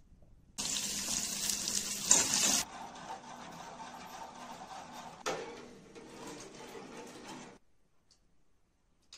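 Running water: loud for about two seconds, then quieter and steady, with a sharp knock about five seconds in, and cutting off suddenly.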